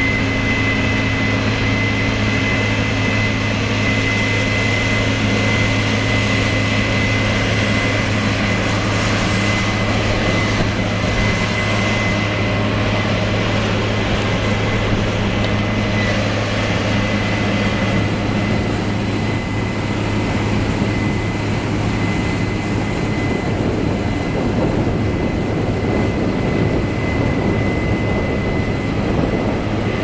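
Case IH AFX8010 combine harvester running while it harvests barley: a steady engine and machinery drone with a constant high whine.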